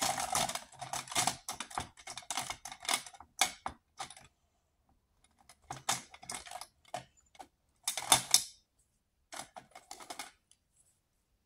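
Plastic felt-tip markers clattering against each other and the cup as a hand rummages through them. The clicking is rapid and dense for the first few seconds, then comes in short bursts with pauses between.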